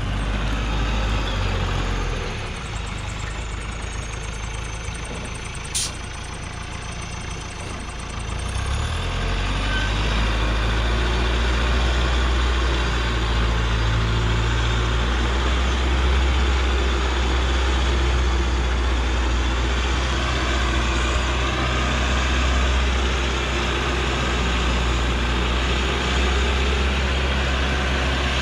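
Hoa Mai light truck's engine running low and steady under a load of acacia logs as the truck crawls over a rough dirt track. It grows louder about nine seconds in, and there is a single sharp click near six seconds.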